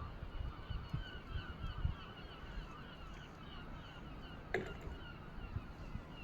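A flock of birds calling continuously, many short overlapping honking calls, with low rumbling of wind on the microphone and a single sharp knock about four and a half seconds in.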